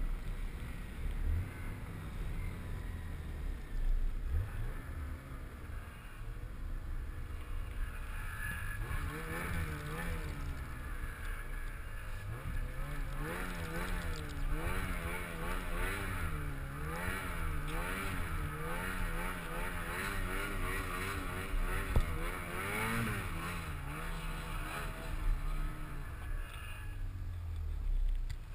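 Snowmobile engine running while riding, with a steady low rumble. From about eight seconds in, its pitch rises and falls over and over. Two sharp knocks come through, the louder one near the end.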